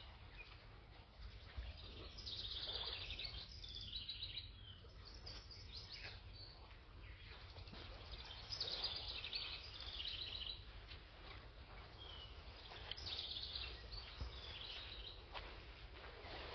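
A songbird singing a short phrase of rapid high notes three times, about every five seconds, over a steady low rumble.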